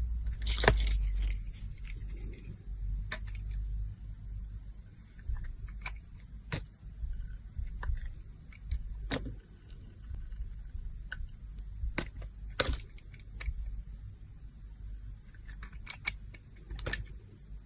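Crisp crunching cracks of dry soap being cut with a knife: a quick cluster about a second in, then single sharp cracks every few seconds, over a low steady hum.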